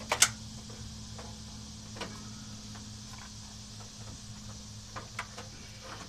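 Scattered light clicks and knocks of handling as the camera is moved about, two sharp ones just after the start and a few fainter ones later, over a steady low hum.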